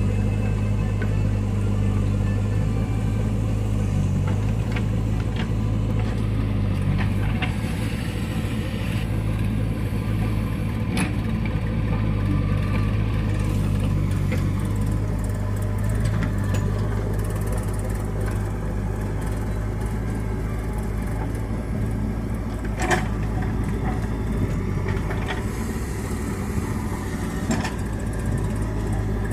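JCB backhoe loader's diesel engine running steadily while the backhoe arm digs soil, with a few sharp clanks from the working arm and bucket.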